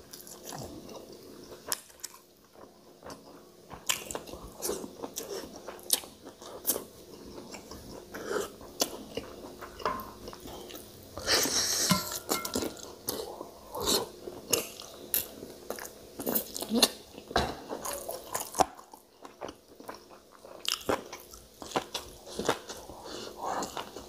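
Close-miked eating sounds: a man chewing chicken from a curry, eaten with his fingers, with many short sharp mouth clicks and smacks and a louder stretch of eating noise about halfway through.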